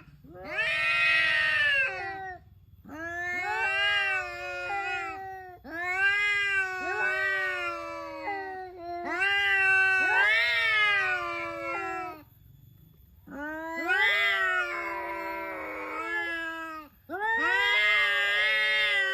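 A black cat yowling loudly, about six long drawn-out calls in a row, each a few seconds long, rising and then falling in pitch, with short pauses between them.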